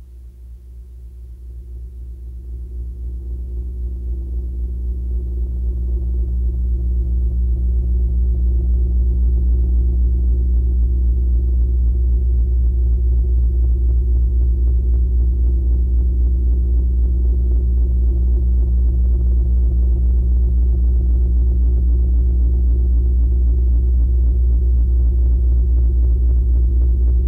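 Deep electronic noise drone from a death-industrial track, with a heavy bass hum and stacked low tones pulsing rapidly. It fades in over the first several seconds, then holds steady.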